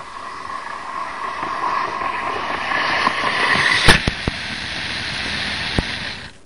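Model train running along its track, the whir of motor and wheels growing louder as it comes in. A sharp knock about four seconds in is followed by a few lighter clicks, and the running sound cuts off shortly before the end.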